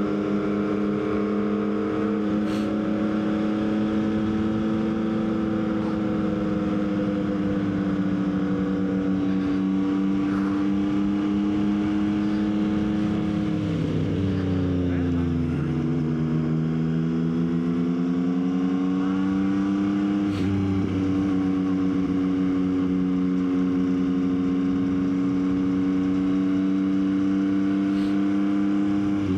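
Yamaha XSR900's inline-three engine running at a steady cruise. About halfway through the pitch drops as the bike slows, then climbs back as it accelerates again.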